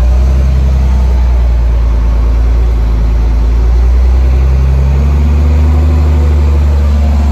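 Dump truck's diesel engine running steadily, heard from inside the cab as a loud, low drone; its note shifts slightly higher about four seconds in.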